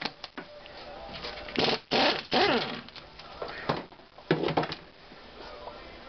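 Hand wrench loosening the center nut on top of a front strut: a few separate clicks, scrapes and squeaks of metal on metal.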